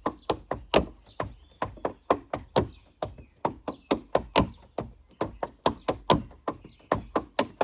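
Tap shoes on a wooden deck dancing a fast time step (stomp, hop, leap, flap, step), alternating sides. The result is a quick, uneven run of sharp metal taps and heavier stomps, about five or six sounds a second.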